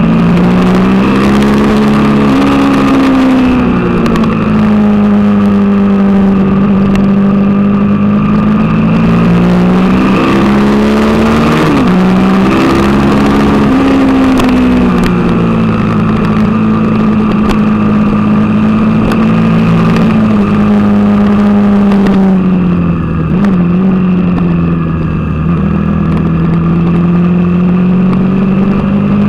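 Suzuki TL1000R's V-twin engine running hard on track, heard from onboard, its pitch rising and falling several times with quick dips and climbs as the revs change.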